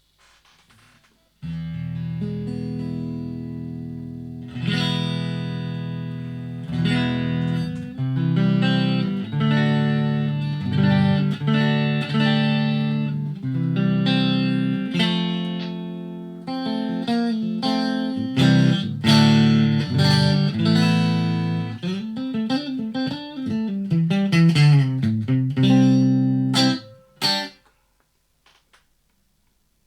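Electric guitar played through a Blackstar ID:Core 40 combo amp on its clean voice: ringing chords, then a passage of quicker single notes near the end before it stops.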